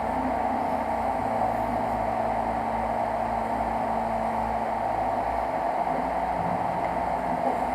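Prusa i3 3D printer printing: its stepper motors hum in low tones that shift pitch every second or so as the head moves, over the steady whoosh of its cooling fans.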